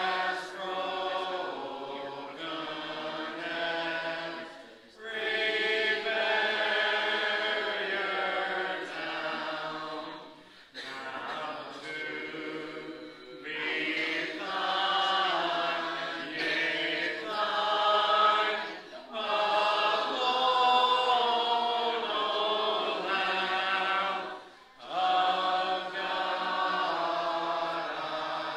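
Congregation singing a hymn a cappella, many voices together with no instruments, in sustained phrases broken by short pauses for breath.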